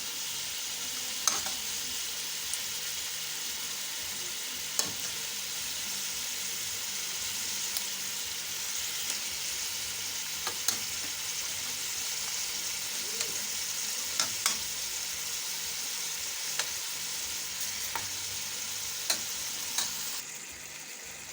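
Raw chicken pieces sizzling steadily in hot oil with a tomato and spice base in a cooking pot, with occasional sharp clicks of a spoon against the pot as it is stirred. The sizzle eases slightly near the end.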